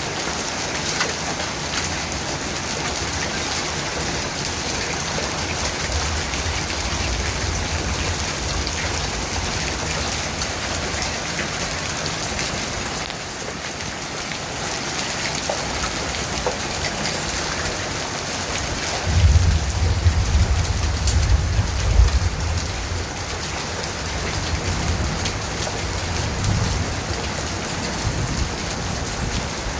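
Heavy rain pouring down steadily during a thunderstorm, with low rumbles of thunder about six seconds in and again, louder, about nineteen seconds in.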